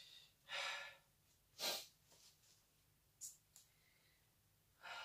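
A man's short, breathy exhales and sighs of effort, about four of them, with two faint clicks a little after the middle, as he strains to push a cast out of a tight silicone mould.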